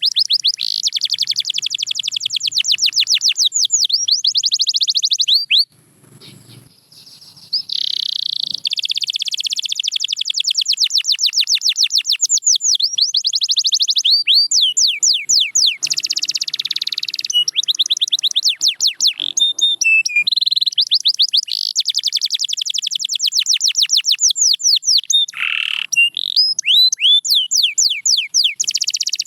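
Domestic canary singing: long trills of rapidly repeated high notes, changing tempo from phrase to phrase, with a pause of about two seconds near six seconds in.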